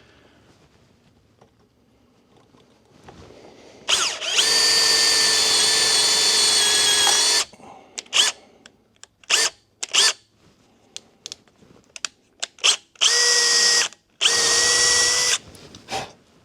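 Electric drill running in bursts, drilling a 1/8 inch pilot hole into a broken fastener for a screw extractor. There is one steady run of about three seconds, a series of short trigger blips, then two more runs of about a second each near the end.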